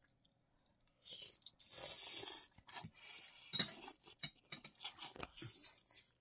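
A person slurping instant noodles, a run of hissing slurps starting about a second in, broken by short sharp clicks.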